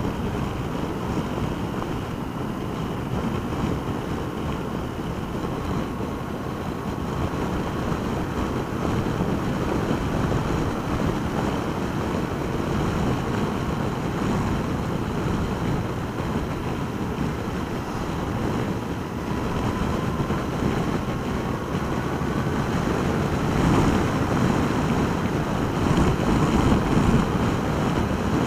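Wind rush and road noise of a Yamaha FJR1300 motorcycle riding at speed, heard through a helmet-mounted camera's microphone. A faint whine rises in pitch about two-thirds of the way through, and the noise grows louder near the end.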